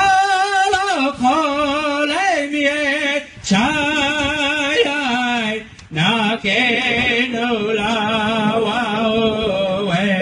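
A man singing a Lakota Tokala Okolakiciye (Kit Fox Society) song, holding long wavering notes in sung phrases that break briefly about three and a half and six seconds in.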